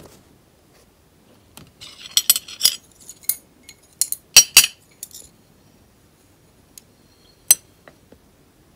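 Chopsticks clicking and clinking against a plate: a quick run of sharp clicks between about two and five seconds in, then a single click near the end.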